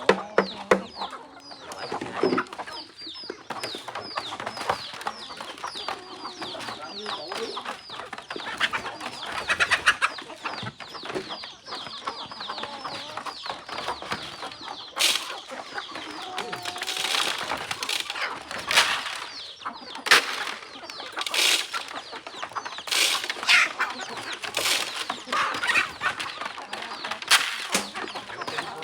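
A flock of chickens clucking, with many quick, high, falling calls packed close together through the first half. From about halfway, sharp clicks and rustling scratches join in among the clucks.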